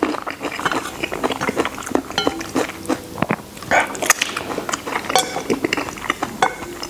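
Close-miked eating sounds: wet chewing and smacking of braised pig face, with many short clicks and clinks of chopsticks against a plate.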